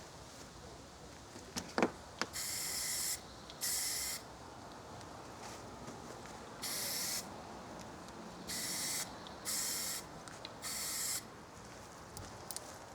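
Aerosol spray paint can hissing in six short bursts of half a second to a second each, with pauses between them, as a small rip fence part is sprayed. A single sharp click comes just before the first burst.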